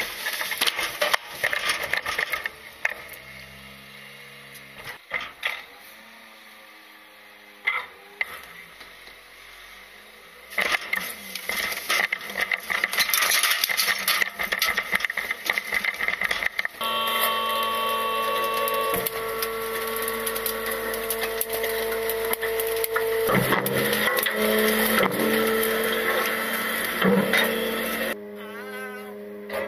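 Small side-loader garbage truck's cart lifter at work: irregular clattering, knocking and rattling of the lift arm and the plastic trash can for the first half. For about the last ten seconds the truck's hydraulics give a steady whine with a hum.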